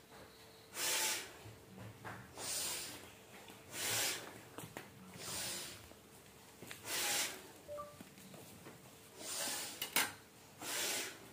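A woman's deep, audible breaths during yoga, about seven in all, one every second and a half or so, each a short hiss. The breaths are paced with repeated lifts and lowerings in cobra pose.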